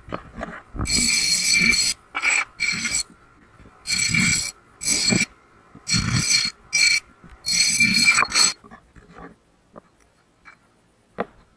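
Disc sander grinding the end of a 4130 chromoly steel tube in about eight short passes, each a harsh rasp under a second long, as the notched tube end is dressed for fit-up in the frame. A few light clicks near the end.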